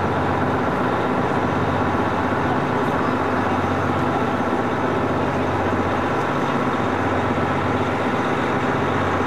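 Steady engine hum and road noise heard from inside a moving tour bus, even and unbroken throughout.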